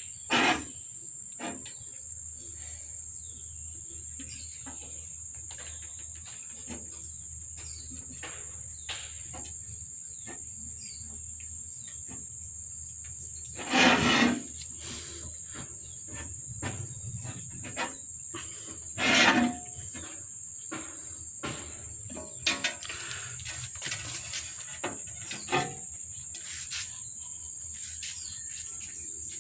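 Steady high-pitched insect drone, with a few short louder sounds over it, the loudest two about halfway through and some five seconds later.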